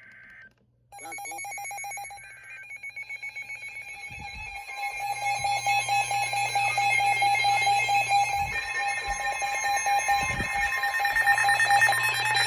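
Emergency Alert System broadcast signal on weather radio. Brief high-pitched digital data bursts are followed by a long, steady alert attention tone that grows louder over several seconds, announcing a special marine warning.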